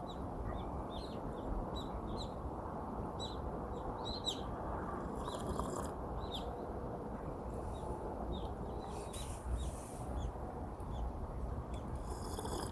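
Small birds chirping, many short repeated calls, over a steady rushing background noise.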